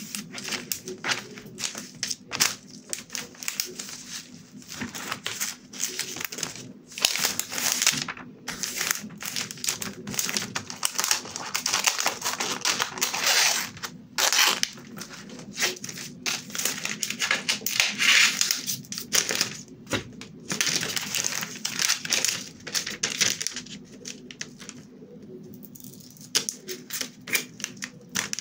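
Thin transparent blue plastic film crinkling and rustling as it is handled and cut with small scissors, with a dense run of quick crackles and snips.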